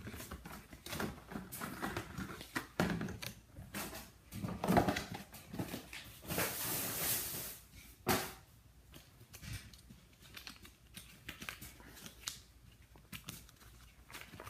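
Toy packaging being handled and opened by hand: irregular clicks, taps and rustles of plastic and paper, with a longer rustle about six to seven seconds in.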